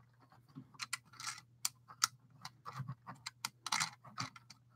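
LEGO plastic bricks clicking and tapping as a train carriage is handled and pressed back together by hand: an irregular scatter of small clicks, with a couple of brief rustles.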